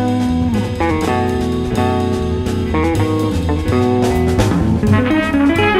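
Background music: a guitar-led band track with drums.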